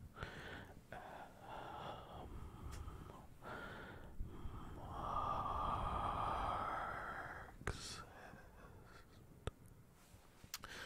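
Breathing close to a microphone, with a long, louder exhale about five seconds in and a few sharp mouth clicks near the end.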